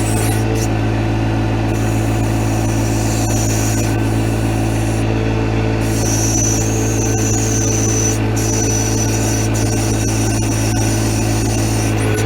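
John Deere 1025R compact tractor's three-cylinder diesel engine running at a steady speed while the backhoe digs, with a high whine that comes and goes.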